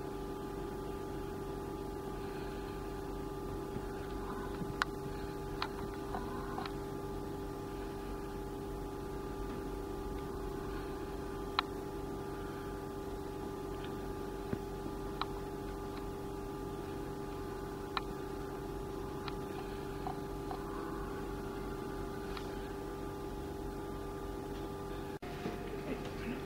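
Steady electrical hum of running lab equipment, holding several fixed tones, with about a dozen small sharp clicks scattered irregularly through it.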